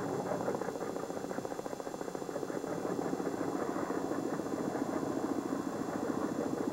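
A boat's engine running steadily with a fast, even throb.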